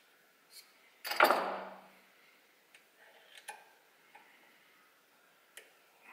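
Hand tools on a workbench: one loud metallic clatter about a second in that rings out briefly. After it come light metallic ticks and clicks as an Allen key is fitted into a reed-block manifold bolt on a cylinder barrel and worked.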